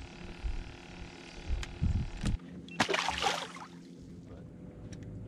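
Low bumps and rumble of handling at first, then about three seconds in a sharp, short splash of lake water close to the microphone, as a hooked crappie is brought to the surface beside the boat.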